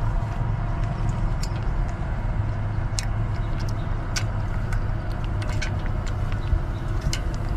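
Small wet clicks and slurps, scattered and irregular, of a baby monkey lapping milk from a metal tray, over a steady low rumble that is the loudest sound throughout.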